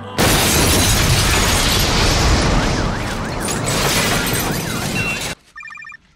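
A sudden, very loud rush of noise that holds steady for about five seconds and then cuts off abruptly, followed near the end by a few short electronic tones.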